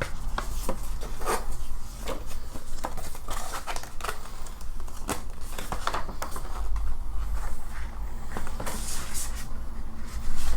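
Paper and card being handled close by: printed art cards and a paper poster rustling and crinkling, with many light taps and clicks at irregular intervals and a longer stretch of rustling near the end.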